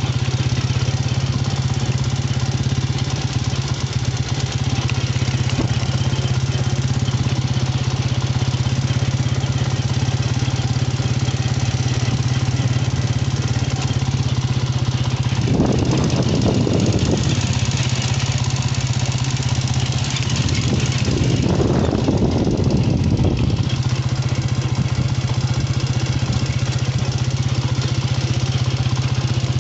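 A small engine running steadily with a low, even hum, swelling louder twice for a second or two a little past the middle.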